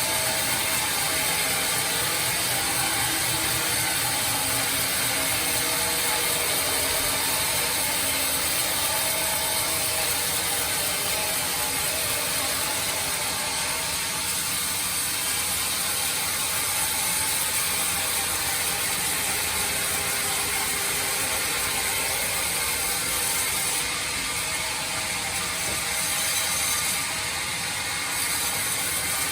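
Sawmill bandsaw machine running through hard teak, a steady, even mechanical noise with a faint hum under it.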